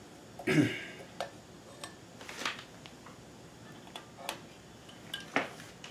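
Hands handling a spool of thread and small sewing-machine parts: a few irregular light clicks and rustles, the loudest about half a second in.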